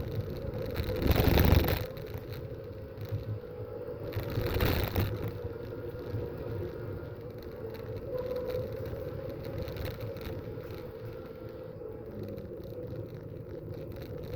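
Race cars passing: two loud pass-bys, about a second in and again near five seconds in, over a steady engine drone.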